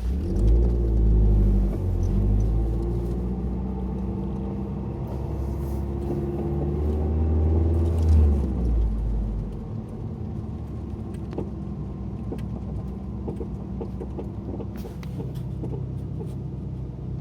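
2012 Mazdaspeed3's turbocharged four-cylinder running as the car drives slowly, pulling harder for about the first nine seconds and then easing off, with scattered faint clicks in the second half. The owner hears a clunking, clicking noise from the left front at low speed, which he thinks is a worn left front axle, while others put it down to the sway bar end link bushings.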